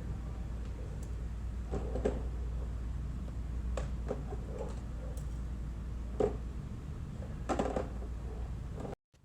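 Scattered clinks and knocks of metal engine parts and tools being handled on a Mazda 13B rotary engine block, over a steady low hum. The sound cuts off suddenly near the end.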